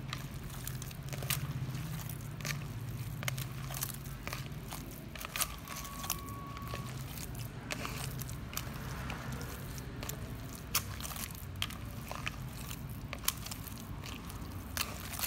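A hand squeezing and kneading soaked, drained bread into a fine mash in a plastic bowl: irregular wet crackling and squishing clicks as the fingers press through the crumbs.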